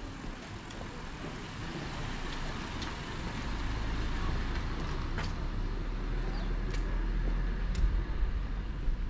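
Street traffic: a road vehicle's engine and tyre noise builds over several seconds into a steady low rumble. A few sharp clicks sound near the end.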